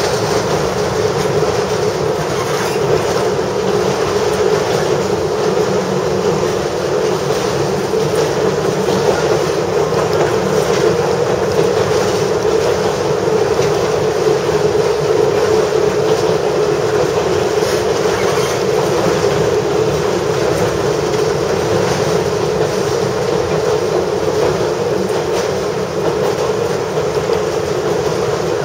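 Kominato Railway KiHa 200 diesel railcar running steadily along the line, heard from inside the front of the car: a constant engine drone under the run of the wheels on the rails.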